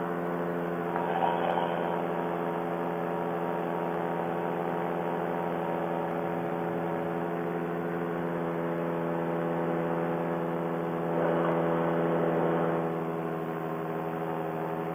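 Paramotor engine and propeller running at a steady cruise in flight, a continuous even drone, a little louder for a second or so about eleven seconds in.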